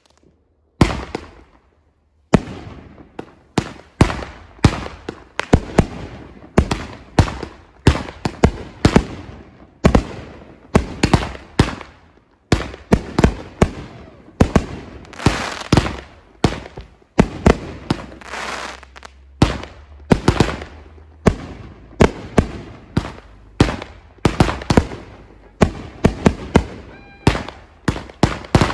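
Fireworks going off in a rapid series of loud bangs, about two a second, each trailing off in an echo. The bangs begin after a brief quiet moment right at the start.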